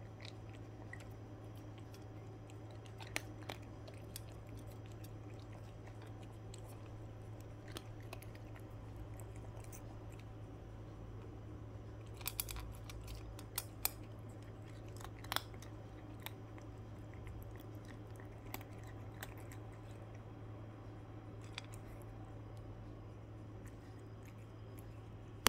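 Domestic cat chewing dry kibble from a metal bowl: scattered sharp crunches, most of them around the middle, over a steady low hum.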